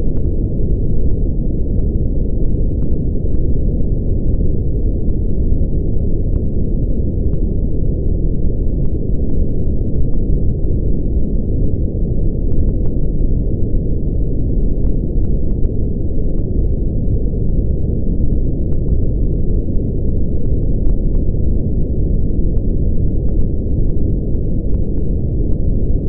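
Brown noise: a steady, unchanging deep rumble, loudest in the bass and fading off toward the treble.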